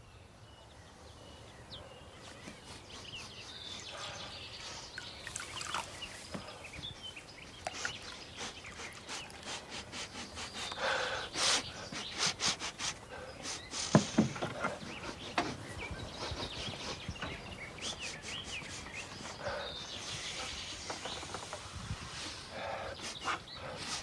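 Birds chirping outdoors, with a man sniffing the air in a run of short, sharp sniffs in the middle.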